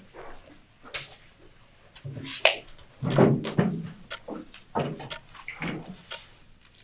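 Irregular knocks, bumps and rustles of people taking their seats at classroom desks and chairs and setting down their things.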